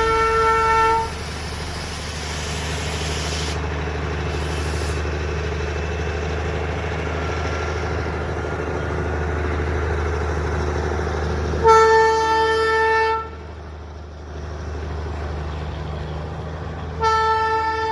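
Train horn sounding in single-pitched blasts: one ending about a second in, another of about a second and a half near the middle, and a third starting near the end. Between them is the steady rumble of the running train.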